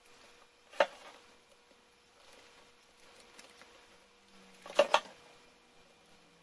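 Two sharp clicks, about four seconds apart, as small hard objects such as a screwdriver, screws or plastic laptop parts are handled and set down, with faint ticks between them.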